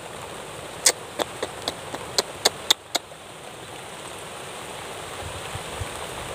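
Steady hiss of light drizzle, with a quick run of about eight sharp clicks starting about a second in and stopping about two seconds later.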